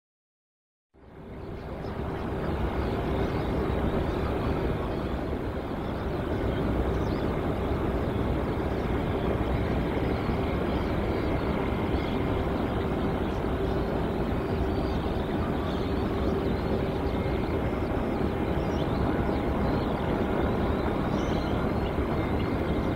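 Airliner engines running steadily, a constant noise with a faint low hum through it, fading in after about a second of silence.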